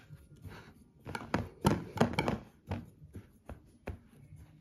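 Metal forks raking and crumbling kinetic sand, a quick irregular series of soft crunchy scrapes, loudest and busiest in the middle.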